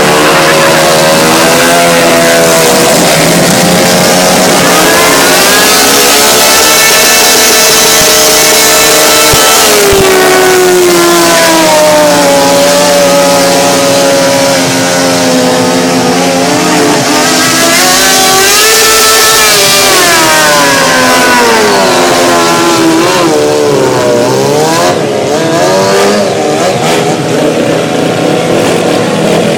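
Engines revving loudly, their pitch rising and falling slowly again and again, with rougher, choppier revving near the end.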